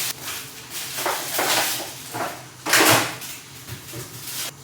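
Groceries being put away in a kitchen cupboard: a few short knocks and rustles of jars and packets handled on the shelves, the loudest about three seconds in.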